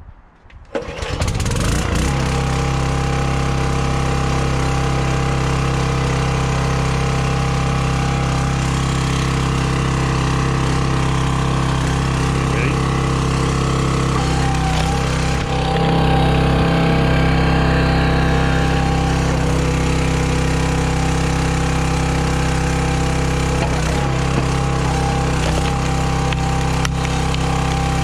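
The gasoline engine of a County Line hydraulic log splitter starts about a second in and then runs steadily at working speed. About halfway through its note shifts and grows a little louder as the hydraulic ram is put to work.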